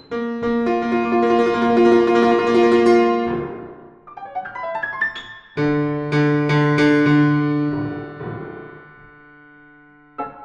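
Piano music in a contemporary classical style. A loud, dense chord is held for about three seconds and followed by a quick run of notes. Then a second heavy, low chord comes a little past halfway and rings away slowly, before fresh notes strike near the end.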